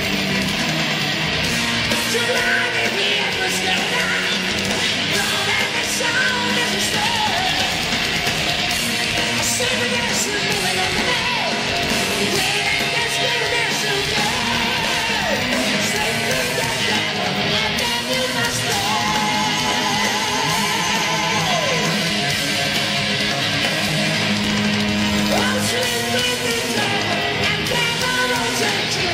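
Heavy metal band playing live through a loud PA: electric guitar lead over bass, drums and keyboards, recorded from the audience with low-quality, distorted sound.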